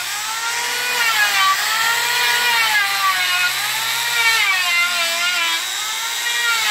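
Electric orbital sander with a round pad running against a solid jackfruit-wood door: a steady motor whine over a sanding hiss, its pitch rising and falling about every second and a half.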